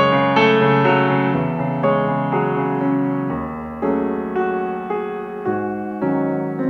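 Piano playing the slow introduction to a hymn-like song: held chords under a simple melody, a new note or chord struck about every second and left to fade.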